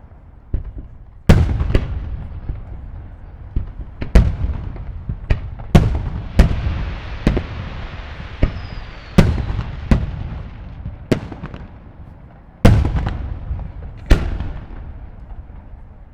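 Aerial firework shells bursting: about fifteen loud booms at uneven intervals, each dying away in a long rolling tail. A steady hiss fills the gaps between them in the middle of the stretch.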